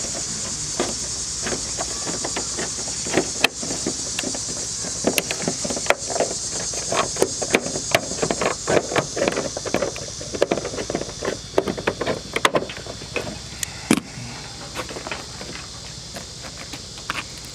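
Gutter guard sections and drip edge being handled and fitted together: many short clicks and rattles, thickest in the middle, over a steady high buzz of insects.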